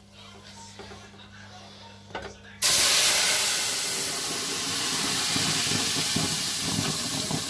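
Hot oil in a stainless steel pot, stirred with a wooden spatula, with faint scraping. About two and a half seconds in, sauce is poured into it and it bursts into a loud, steady sizzle that keeps going.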